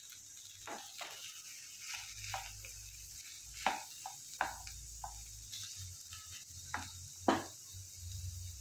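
A spatula scraping and knocking against a frying pan as chopped vegetables and boiled potato are stirred, with a few sharper knocks about three and a half, four and a half and seven seconds in, over a faint steady sizzle.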